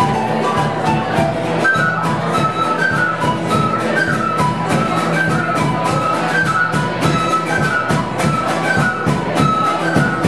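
Live folk band playing: a wooden flute carries a stepping melody over strummed acoustic guitar and a steady beat on a rope-tensioned bass drum.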